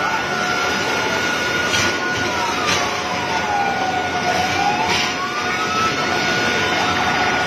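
Emergency vehicle siren wailing, sliding slowly down in pitch and rising again, alongside a steady high tone and a constant rushing street noise.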